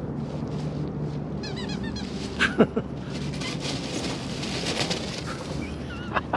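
Puppy making short high squeaky yips, with one louder yelp about two and a half seconds in and a rustling hiss through the middle.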